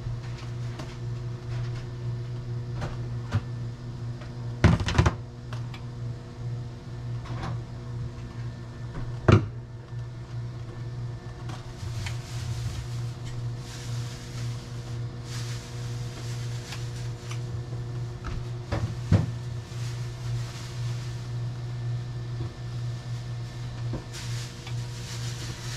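Kitchen handling sounds over a steady low electrical hum: a refrigerator door and the items inside being moved, with three sharp knocks, one about 5 seconds in, one about 9 seconds in and one about 19 seconds in. A faint sizzle from ham slices frying in a dry skillet comes and goes.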